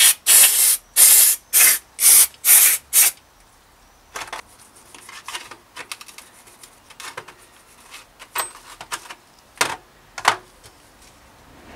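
An aerosol cleaner sprayed in about six short, loud bursts onto greasy headset cups and races to clean off the old gunk. Then come quieter clinks of the metal parts being handled and a toothbrush scrubbing them, with two sharper knocks near the end.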